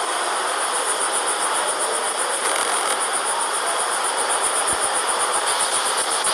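Ambient launch-pad audio from a rocket launch broadcast during the final countdown: a steady rushing noise with a high, rapid, evenly pulsing chirr above it.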